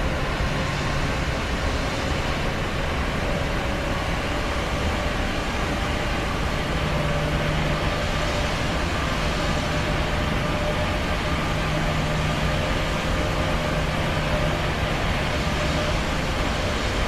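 Airplane engine and air noise: a steady, even rush with a low hum running under it.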